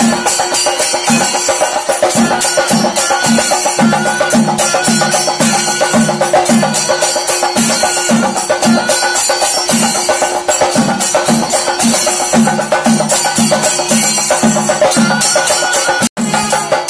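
Kerala temple percussion ensemble playing: a steady beat of low drum strokes, dense clashing of hand cymbals, and held horn tones over them. The sound cuts out for an instant near the end.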